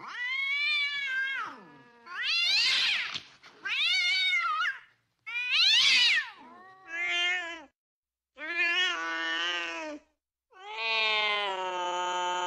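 Domestic cat caterwauling: a string of about seven loud, drawn-out yowls that rise and fall in pitch, ending in one long, nearly level wail. These are the yowls of cats mating.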